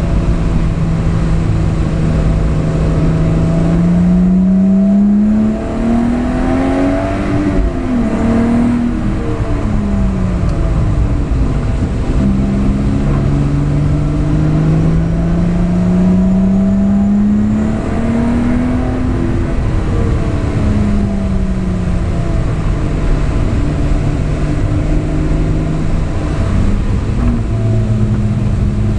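Lotus Exige LF1 engine heard from inside the cabin on track. The engine note climbs steadily twice as the car accelerates and falls away after each, with a brief dip in level early on, over steady tyre and road noise.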